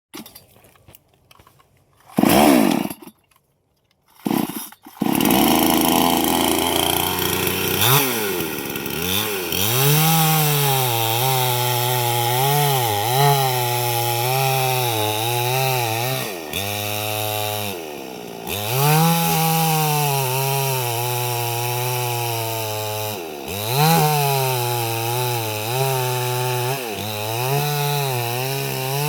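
Chainsaw: two short bursts in the first few seconds, then from about five seconds in it runs steadily. Every few seconds it revs up and its pitch sags lower as it cuts into wood.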